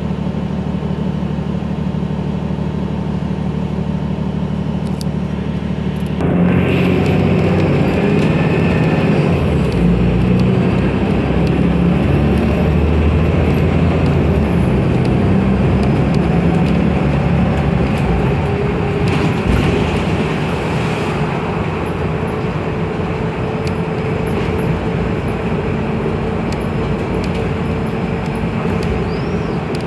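City transit bus heard from inside the cabin: the diesel engine idles steadily at first, then about six seconds in the bus pulls away and engine and road noise get louder and rougher, carrying on as it drives.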